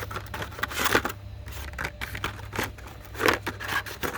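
Blister-packed Hot Wheels cars being handled: plastic and cardboard clicking and scraping as packages are pulled from a shipper box, with louder rustles about a second in and again just past three seconds. A steady low hum runs underneath.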